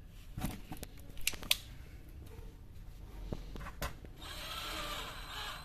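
A few sharp clicks and knocks of tools being handled, then a cordless drill-driver running for about a second and a half near the end, driving a screw into the sandwich toaster's sheet-metal plate.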